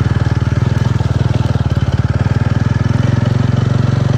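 TVS Ronin 225's single-cylinder engine running steadily as the motorcycle is ridden, a fast, even pulse of firing strokes close to the microphone.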